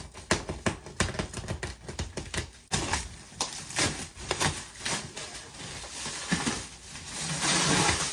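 Clear plastic stretch wrap being cut and pulled off a couch: crackling and crinkling, with a longer, louder ripping tear near the end.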